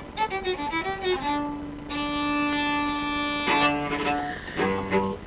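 Violin playing a phrase of notes, with one long held note for about two seconds in the middle; lower notes come in near the end.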